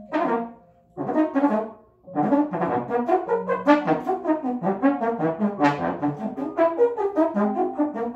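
Trombone improvising in short, rapid notes: two brief phrases with pauses in the first two seconds, then a continuous flurry of quick notes.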